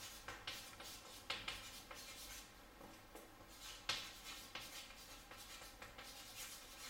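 Chalk writing on a chalkboard: faint, irregular scratching strokes with a few sharper taps as letters are formed.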